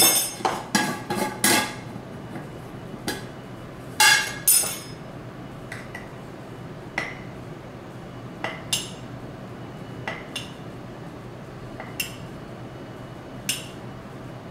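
A metal spoon clinking and tapping against a glass flour jar and a ceramic coffee mug as flour is scooped into the mug, in single sharp clinks or pairs every second or so. A busier clatter of knocks and clinks comes near the start and again about four seconds in, as the jar is opened and handled.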